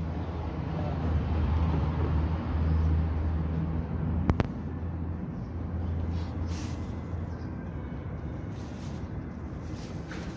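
Low, steady rumble of a motor vehicle's engine in street traffic, louder for the first few seconds and fading out after about seven seconds. One sharp click sounds about four seconds in.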